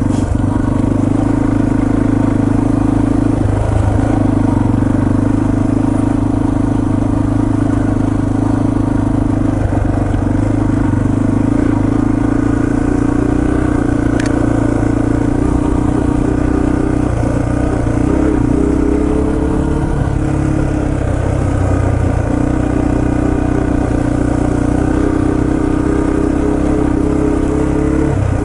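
Yamaha TT-R230 trail bike's single-cylinder four-stroke engine running steadily while riding, its pitch shifting a little for a few seconds past the middle as the throttle changes.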